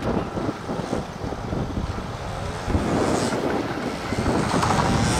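Train passing over a level crossing, a rumbling that grows louder about three seconds in, with wind buffeting the microphone.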